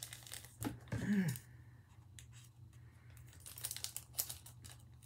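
Plastic snack wrapper of a single rice-cracker packet crinkling and tearing as it is opened by hand, a run of small rustles and clicks that thickens near the end. A short hum from a voice about a second in.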